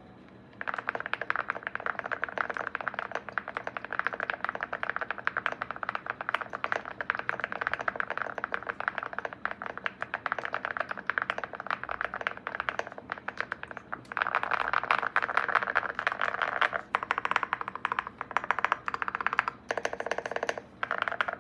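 Fast, continuous typing on a Leobog Hi75C mechanical keyboard fitted with Keygeek Y2 switches and Akko MOA-profile keycaps. The keystrokes have a deep sound, with the typing growing louder past the middle.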